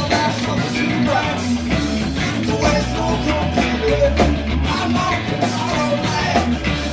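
A rock band playing live: drums, bass and guitar with a sung vocal line.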